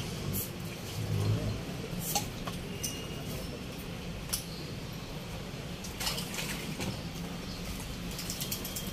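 Outdoor background ambience: a low steady hum with a few scattered light clicks and taps, several of them close together near the end.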